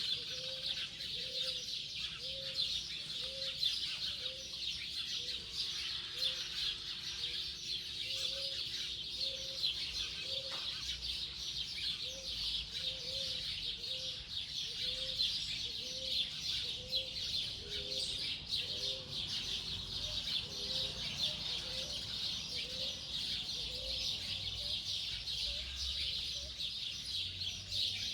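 Morning chorus of many birds, a dense, unbroken high chatter, over a short, low note repeated steadily a little more than once a second.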